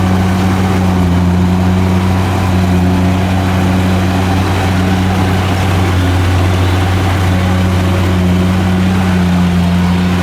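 Kubota DC70 combine harvester's diesel engine running steadily, a constant low hum with a slight waver in its pitch.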